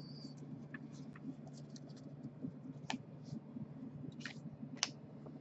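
Baseball trading cards handled and sorted by hand: faint scrapes and light ticks of cards slid and set down on stacks on a wooden tabletop, over a steady low hum.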